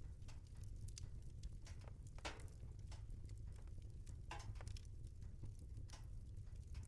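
Wood fire burning in a fireplace: a low steady rumble of flames with irregular sharp crackles and pops, two longer crackles about two and four seconds in.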